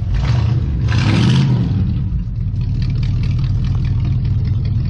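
Engine of a 1959 Dodge Coronet running with a steady low exhaust rumble, given a brief rev about a second in before settling back to idle. The engine is cold, started after sitting overnight.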